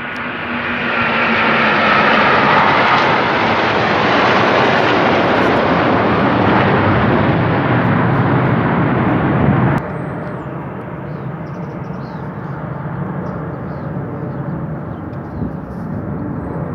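A large formation of RAF Eurofighter Typhoon jets passing overhead: a loud rushing jet roar whose whine falls in pitch over the first few seconds. About ten seconds in the sound drops away abruptly to a fainter rumble.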